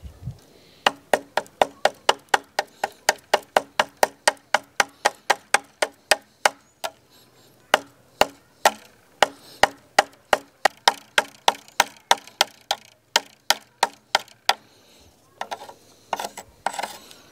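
A small cleaver-style pocket knife chopping repeatedly into wood, sharp strikes about three a second, with two short pauses. Softer rustling near the end.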